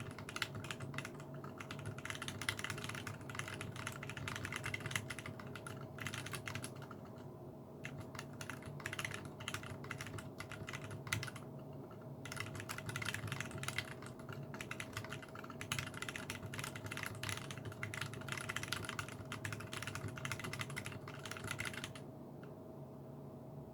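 Fast typing on a mechanical keyboard built from a Revo RJ kit with Zealios 62g tactile switches and Zeal stabilizers: quick runs of keystrokes with two brief pauses, stopping near the end.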